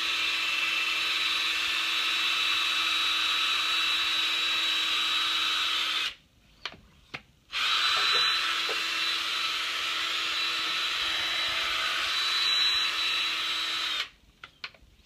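Cordless drill running at a steady speed with a high whine, spinning a magnetic separator wand through black sand on a plastic tray. It stops about six seconds in for a second and a half, with a few light clicks, then runs again and cuts off about a second before the end.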